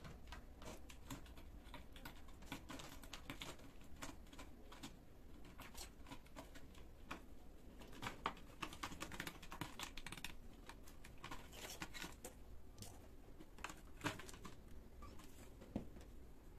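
Kittens playing with a large plastic water bottle and a torn plastic label: irregular light clicks, taps and crinkles of claws and paws on the plastic and the tile floor, with a few sharper clicks among them.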